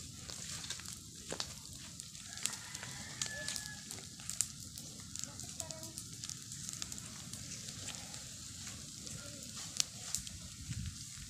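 Open fire of dry bamboo pieces and sticks crackling around bamboo tubes, with irregular sharp pops and snaps over a steady hiss.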